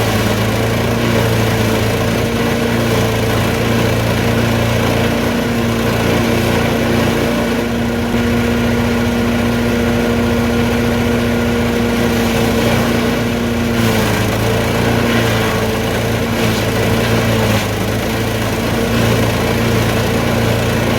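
Champion 338cc chipper shredder's single-cylinder four-stroke engine running steadily. Its pitch sags briefly about five seconds in and again about fourteen seconds in, and a few short crackles follow the second sag.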